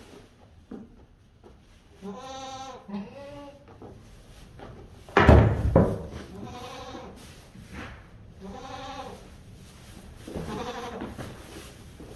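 Goats bleating, about four separate calls spread over several seconds. About five seconds in there is a single loud thump.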